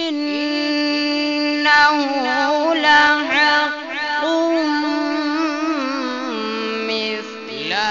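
A male qari reciting the Quran in one long, drawn-out melodic phrase with wavering ornaments, carried over a sound system. The held pitch steps down about six seconds in.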